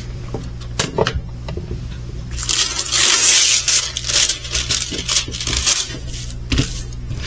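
Plastic packaging crinkling and rustling as a craft kit is handled and unpacked, loudest from about two and a half to four and a half seconds in, with small clicks and taps between.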